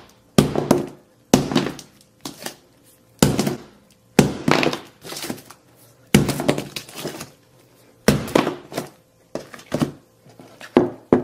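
A 3-pound hammer striking a Samsung Galaxy S8 Plus over and over as it lies on a hard surface, shattering its glass. About a dozen heavy blows land roughly a second apart, some in quick pairs.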